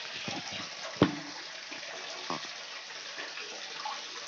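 Tap water pouring steadily into a basin of water, splashing on the surface. A sharp knock about a second in stands out above the running water.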